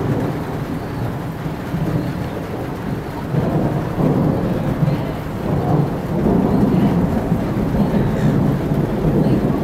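Thunder from a nearby storm rumbling low and rolling, swelling about three seconds in and again about six seconds in.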